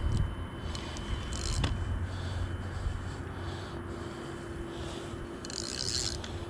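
Handling noise from a spinning reel and fishing rod while a hooked carp is played: scraping and rubbing, with a sharp click about a second and a half in and a short hiss near the end, over a steady low hum.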